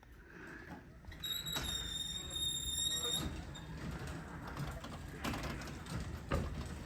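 Liftmaster garage door opener closing the door: a low, even rumble of the motor and moving door. A steady high beep sounds for about two seconds near the start, and a couple of knocks follow later on.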